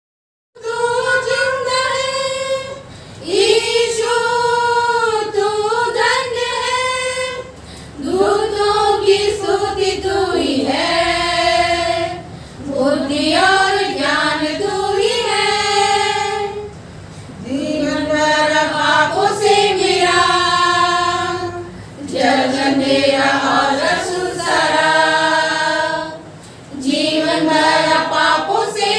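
A small group of women singing a church hymn together, unaccompanied. It goes in phrases of a few seconds, each followed by a short break for breath.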